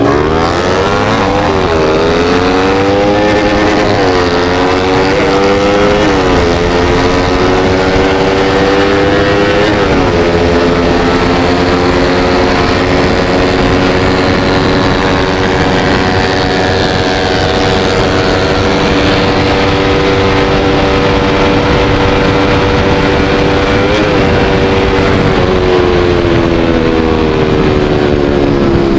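Yamaha Vixion's single-cylinder four-stroke engine, bored up to 200 cc, accelerating hard at full throttle through the gears. The pitch climbs and drops back at each upshift, about 1.5, 4, 6 and 10 seconds in. It then holds a steady high-speed pitch and eases off near the end.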